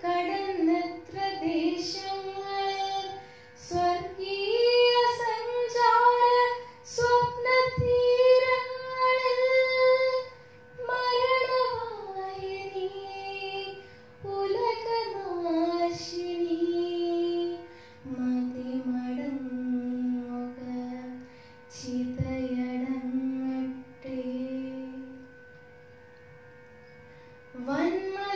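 A girl's solo voice singing a Malayalam poem in the traditional chanted recitation style, unaccompanied, into a handheld microphone: long held notes in phrases, with a pause of about two seconds near the end.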